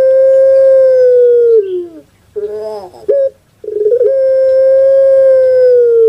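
Puter pelung dove (Streptopelia risoria) singing its long-drawn call: two long held notes, each dropping in pitch at its end, with a quick run of short notes between them.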